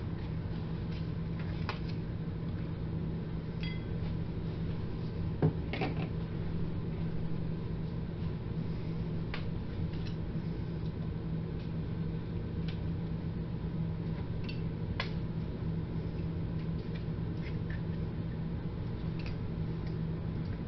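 Pliers pulling old brad nails out through the back of wooden window trim: scattered short clicks, one sharper click about five seconds in. A steady low hum runs underneath.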